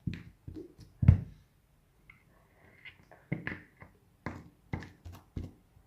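Hands kneading and pulling at a large lump of slime to free a coin and magnet buried in it: a string of short sticky pops and clicks, the loudest about a second in.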